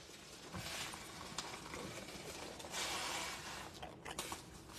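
Soft hiss and bubbling of a pot of creamy soup simmering under a heap of fresh spinach leaves. The hiss swells a little past the middle, and a few light clicks come near the end.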